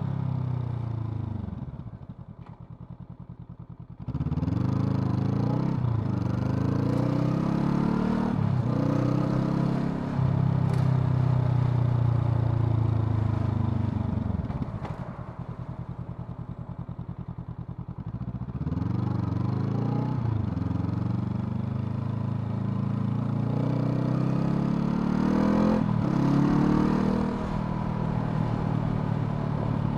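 Honda CL500's parallel-twin engine under riding. It winds down off the throttle at first, then picks up about four seconds in and revs up through the gears, with a short dip at each upshift. It then holds a steady cruise, falls away again around the middle, and accelerates through more upshifts near the end.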